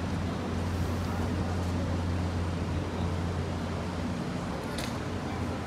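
City street ambience: a steady low rumble of road traffic and urban background noise, with a faint tick about five seconds in.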